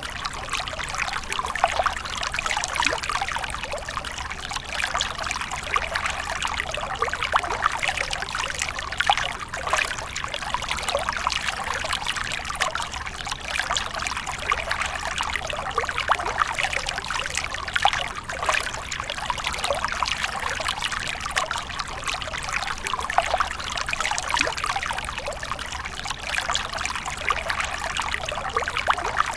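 Water splashing and trickling without a break, a dense, irregular patter of small splashes.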